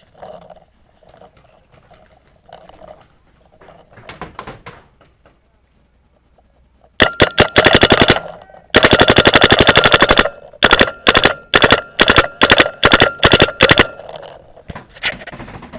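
Paintball marker firing: after a few quiet seconds, very loud rapid strings of shots, then single shots about three a second, with a few fainter shots near the end.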